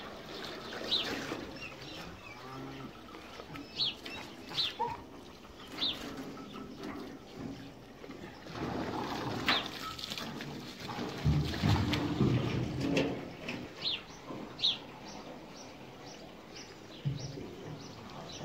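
Small birds chirping, about ten short high chirps scattered throughout. About halfway through comes a louder few-second stretch of splashing and scraping as a heavy metal water trough is tipped up and water spills out.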